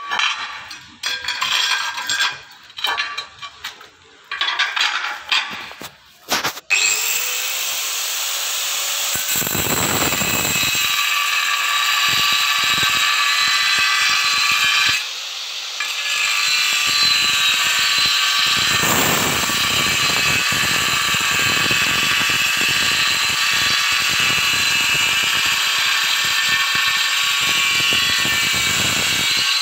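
Makita M9513B angle grinder with a diamond blade cutting tile. After several seconds of irregular knocks and clicks, the grinder starts about seven seconds in and runs with a steady high whine. A harsher grinding noise comes in and out as the blade bites into the tile, and the level drops briefly about halfway through.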